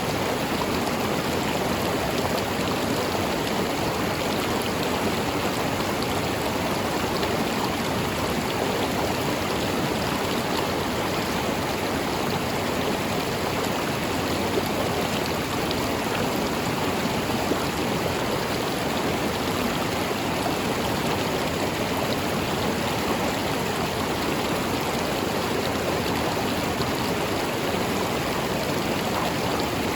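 River water flowing and rushing steadily over rocks, an even, unchanging rush of water.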